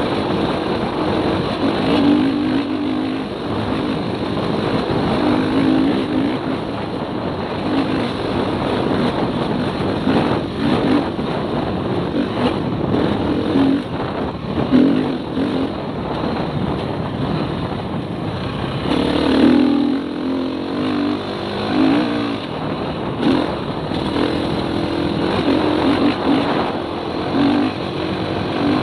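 Off-road motorcycle engine pulling hard at speed, its note swelling and easing with the throttle, under heavy wind rush on the microphone, with scattered short clicks and knocks.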